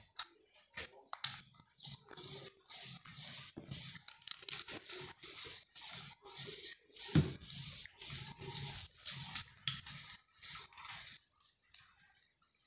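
Small foam paint roller rolled back and forth over a kitchen countertop, laying on a coat of pink paint: a repeated sticky rasping, about two strokes a second, that stops about 11 seconds in.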